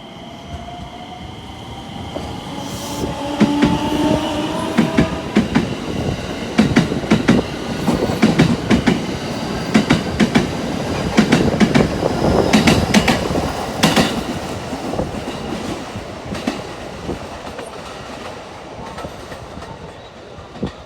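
JR West 321 series electric train running past, its wheels clattering over rail joints in quick groups of clicks, loudest in the middle and fading away near the end. In the first few seconds, a whine rises in pitch as the train gathers speed.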